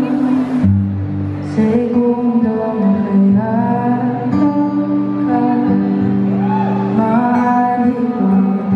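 A female singer singing a slow ballad live into a microphone over sustained instrumental accompaniment, heard through the stage sound system from the audience.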